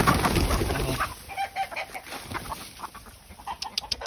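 Mixed flock of chickens scattering with a loud flurry of wing-flapping in the first second, then clucking. Near the end a fast, even run of dry ticks begins.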